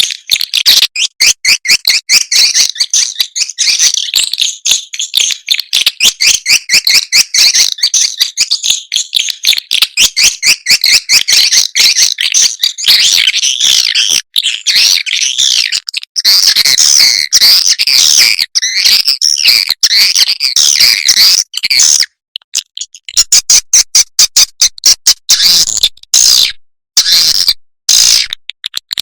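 Swiftlet lure recording of rapid, high-pitched chirping and clicking calls, repeated in dense trains. The notes merge into continuous chatter partway through and break off briefly a few times near the end. It is the kind of call-and-roost sound played to draw swiftlets into a nesting house.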